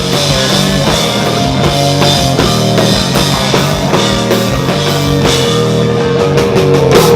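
Loud live punk rock from a three-piece band of guitar, organ and drum kit, with steady, regular drum strikes under held chords. The music cuts off suddenly at the very end.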